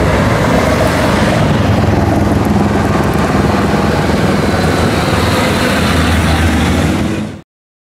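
Rally car engines running hard under load as the cars drive through a bend on a wet road, with the hiss of tyre spray. The sound cuts off suddenly near the end.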